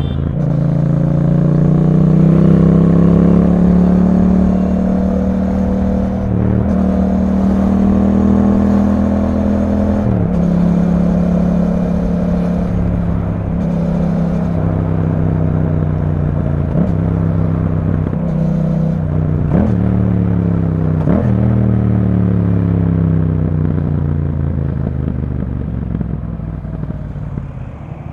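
2021 Yamaha MT-07's 689 cc parallel-twin engine through an Akrapovic exhaust, ridden on the road: it pulls up through the revs and changes up through the gears in the first half. Past the middle come a few quick rev blips as it shifts down, and the engine note falls away as it slows near the end.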